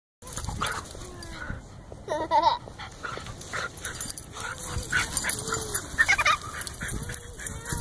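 Two beagles playing and vocalizing, with several short pitched cries a second or so apart, the loudest about two seconds in.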